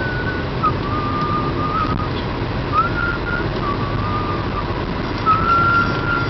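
Steady road and engine noise inside a car cabin at highway speed, with a thin high melody of held and sliding notes running over it.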